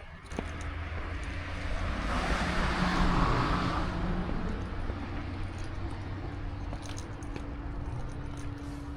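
A vehicle passing close by: its noise rises just after the start, is loudest about three seconds in, then eases off, leaving a steady hum from about six seconds in.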